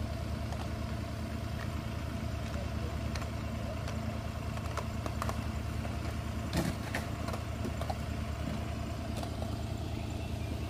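Engine of a compact mini track loader idling steadily, with scattered light clicks and one louder knock about six and a half seconds in.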